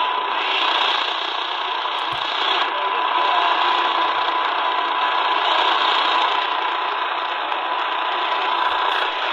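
Medium wave AM static hiss from the C.Crane CC Skywave SSB portable radio's speaker, tuned to a weak distant station near the bottom of the band, with a steady whistle tone running through it.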